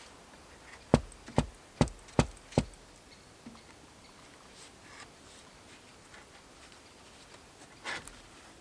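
Five sharp knocks in quick, even succession, a little more than two a second, then a fainter short knock near the end.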